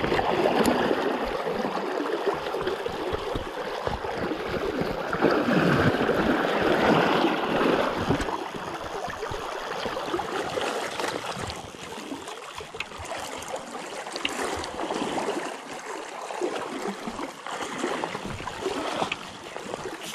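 River water rushing and gurgling, louder in the first half and quieter from about eleven seconds in.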